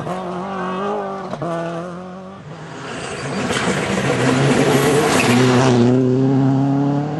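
Rally car engine at steady revs with a couple of sharp cracks, then a car approaching and passing close at speed: a growing rush of engine and tyre noise, loudest about five seconds in.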